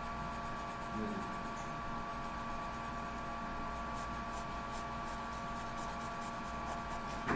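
Pen scratching on paper in runs of quick, short, repeated strokes, as when hatching in shading, over a steady electrical hum.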